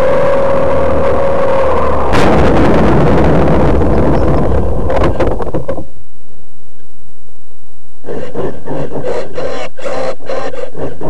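R/C T-28 Trojan model airplane's motor winding down in pitch on the landing approach. Then, about two seconds in, a sudden harsh scraping rumble as the plane touches down and slides on asphalt, ending with a few knocks as it comes to rest near the six-second mark. From about eight seconds an irregular crackling noise follows.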